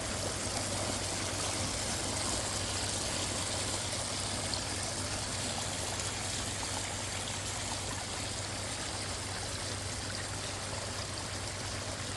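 A small backyard pondless waterfall running, water splashing and trickling steadily down its stone cascade.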